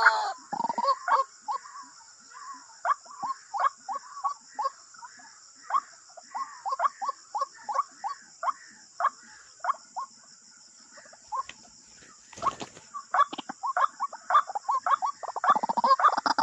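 White-breasted waterhen calling: a long run of short, harsh, downward-sliding notes, about two a second, coming faster and louder in the last few seconds. A single sharp knock comes about twelve seconds in.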